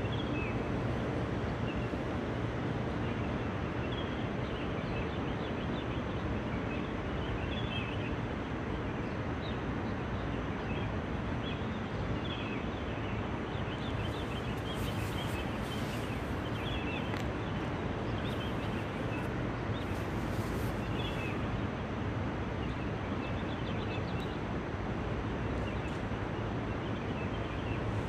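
Steady outdoor ambience, a continuous low rumble, with faint small bird chirps scattered throughout.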